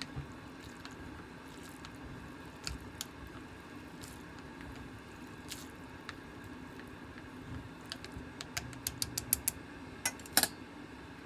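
Scattered light clicks and taps of utensils in a bowl of ramen in soup, with faint wet squishing, over a steady low hum. A quick run of taps comes near the end, followed by two louder clicks.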